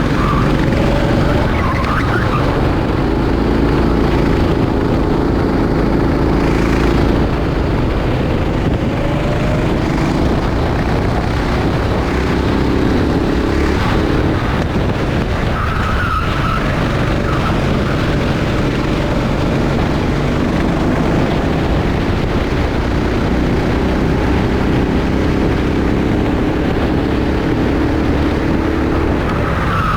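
Rental kart engine running at race pace, its pitch rising and falling through the corners, with short tyre squeals about a second in, about halfway through and at the end.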